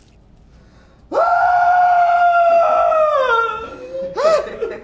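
A man screaming in pain as his fingers are cut off: one long held scream that falls away in pitch, then a short second cry near the end.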